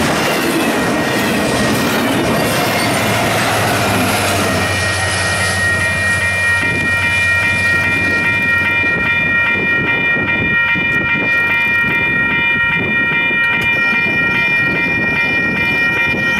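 Union Pacific double-stack freight train passing at speed: a dense rolling rumble and wheel clatter. From about a third of the way in, a steady chord of high tones comes in and holds.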